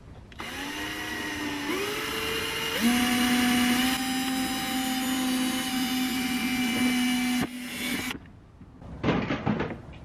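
Titan cordless drill running as it drills a hole, speeding up in two steps over the first few seconds, then holding a steady whine before stopping about eight seconds in. A short rattling clatter follows near the end.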